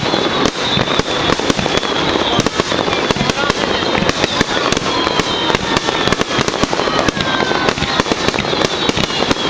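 Fireworks display going off in rapid succession: dense, overlapping bangs and crackling with no pause, and a few thin whistling tones gliding through.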